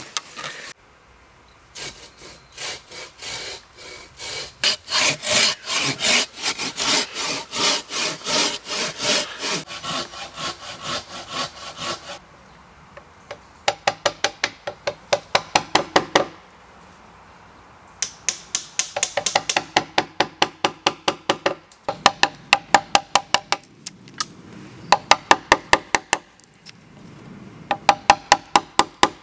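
Hand auger boring into a sweet chestnut log, a rasping grind with each turn about twice a second, stopping about twelve seconds in. Then a hammer striking a wood chisel in quick runs of ringing taps, about five a second, chopping notches into a sweet chestnut post.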